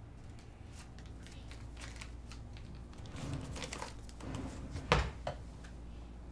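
Faint rustles and small clicks of handling, then a wooden chair scraping on the floor and a sharp thump about five seconds in as someone sits down at a desk.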